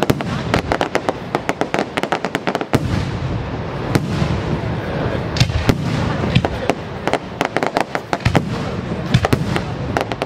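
Fireworks display: aerial shells bursting overhead with a dense, irregular run of crackling pops, many a second, and sharper bangs among them.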